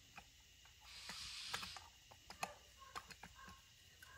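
Faint clicks and light taps of small metal parts and hand tools being handled during carburetor assembly, with a short hiss about a second in.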